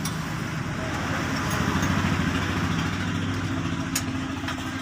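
A diesel truck engine running steadily with a low, even pulse, growing a little louder about a second in and easing slightly near the end.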